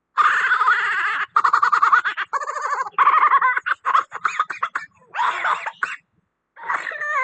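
An animal's warbling vocal calls in several bursts with short gaps, the last call falling in pitch near the end.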